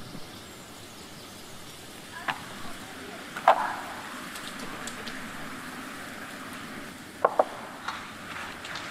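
Wooden spatula stirring a stiff grated mixture in a stainless steel bowl, with a few sharp knocks of the wood against the metal: one about two seconds in, the loudest about three and a half seconds in, and a quick pair near seven seconds.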